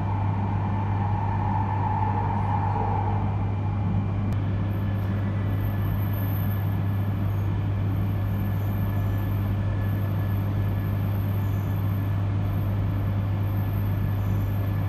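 Steady low hum and rumble of a JR East E3 series shinkansen, heard from inside the passenger cabin as the train runs and then rolls in alongside a station platform.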